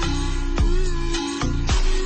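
Background electronic music with a heavy, steady beat: deep kick drums with falling bass sweeps roughly twice a second, under held synth tones.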